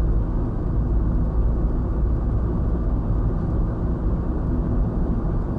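Steady road and engine rumble of a car driving at highway speed, heard from inside the cabin through a dashcam microphone.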